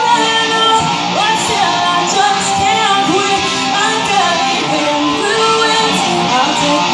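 Live band playing: electric guitar with a woman singing into a microphone.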